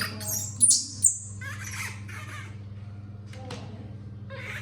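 Baby monkey giving two short, very high-pitched squeals about a second in, followed by fainter rustling sounds, over a steady low hum.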